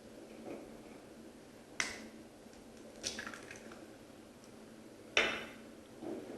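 Eggs being cracked against the edge of a bowl for a batter: three sharp cracks, the last the loudest, with a few small ticks after the second.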